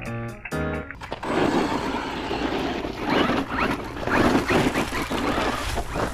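A brushless 4x4 RC truck driving outdoors, its tyres scraping and churning over rough ground in a run of noisy rushes. For about the first second, background music plays before it cuts off.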